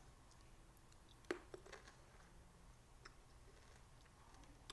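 Mostly near silence with one sharp click a little over a second in, then a few fainter clicks: a small green lime being bitten into and chewed.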